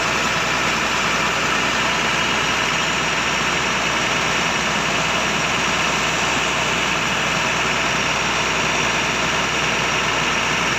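Truck engine running steadily to power the hydraulics of a Fassi knuckle-boom crane as its third boom section is moved, an even, unbroken drone with no change in pitch.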